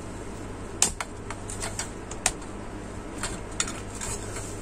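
Light irregular clicks and taps of white ABS plastic parts being handled and fitted together, the legs of a plastic pot rack being hooked into its bottom ring. There are about ten clicks, the sharpest about a second in.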